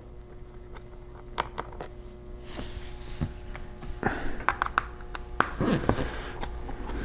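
Light clicks and scraping of small hand tools working on a laptop's bottom case, over a faint steady hum.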